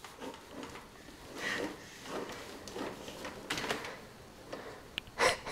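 Soft, scattered knocks and rattles from a plastic ride-on toy car being pushed over a tile floor, with a louder bump about five seconds in.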